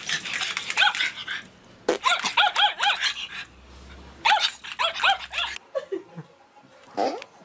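Small dog barking in quick, high-pitched yips, in three bursts. After a cut, a few lower, falling whines from another dog.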